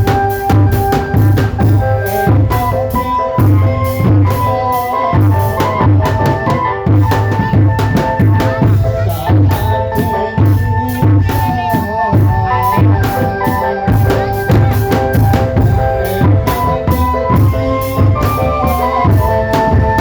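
Drum band playing: bass and snare drums keep a fast, steady beat, with a melody of held notes over it.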